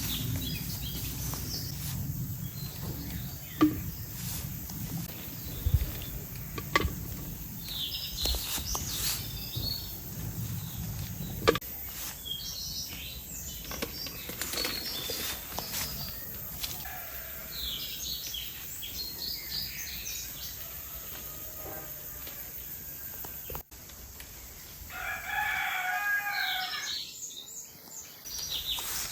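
Chickens calling in a farmyard, with a rooster crowing once near the end. A few sharp knocks sound in the first half.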